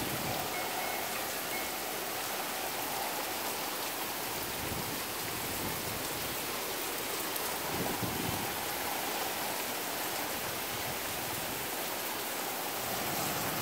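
Steady rain falling, with drips coming off a roof eave.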